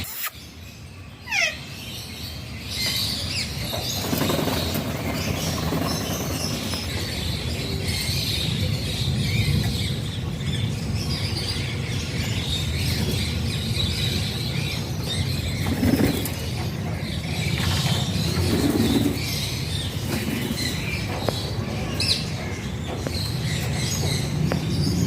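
Alexandrine parakeet shuffling and flapping its wings, with a few brief chirps over steady rustling. A single short falling whistle comes about a second in.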